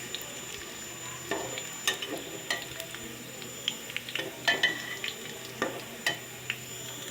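Chopped onion and whole spices frying in oil in a pan, sizzling steadily as the onion turns golden. A spatula stirs and knocks against the pan about nine times, in short sharp clicks.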